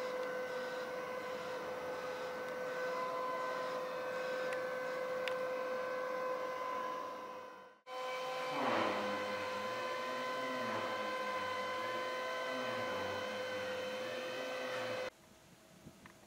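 Steady machine hum with a constant high whine. It drops out for a moment about eight seconds in and cuts off suddenly about a second before the end.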